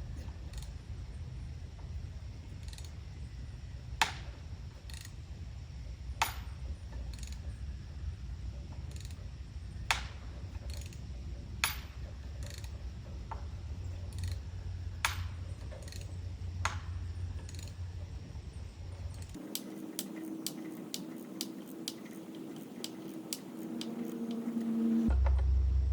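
Ratchet wrench clicking as it drives lag bolts into a board on a tree, sharp single clicks every second or two over a low rumble. About two-thirds through, the clicking turns into a quicker, even run over a low hum.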